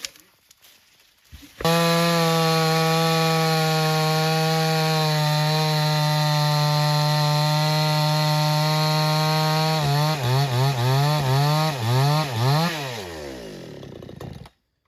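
Chainsaw engine running at a steady high pitch, which then rises and falls several times before sliding down and fading as the engine slows. It starts suddenly about two seconds in and cuts off just before the end.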